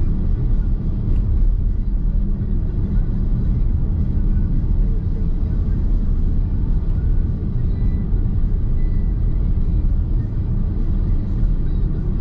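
Nissan X-Trail Hybrid driving along at a steady pace: continuous road and tyre rumble heard inside the cabin, heaviest in the low end. It holds steady without any sharp events.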